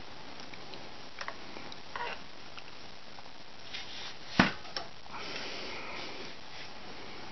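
Handling noises from a plastic quadcopter and its FPV monitor being moved about on a table: a few small clicks and taps, one sharp knock about four and a half seconds in, then soft rustling.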